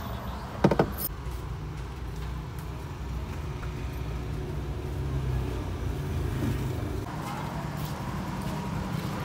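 Steady low rumble of a car rolling slowly along a street, heard from inside the cabin, with one short loud sound about a second in. From about seven seconds in, a lighter outdoor street hiss joins it.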